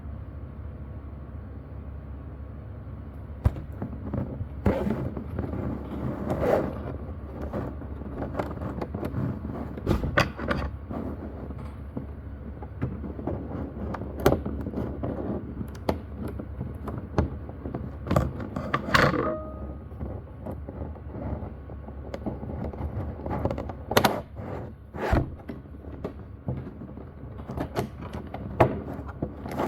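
Hands handling boxes and packaging: irregular clicks, taps and knocks over a steady low hum, with a brief squeak near the middle.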